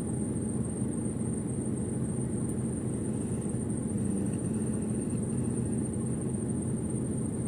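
Steady low mechanical hum inside a lorry cab, with a thin high whine above it.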